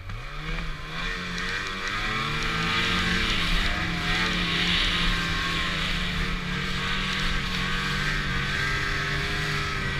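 Snowmobile engine revving up, then running steadily at high revs with small rises and falls as the sled rides across snow, over a steady hiss.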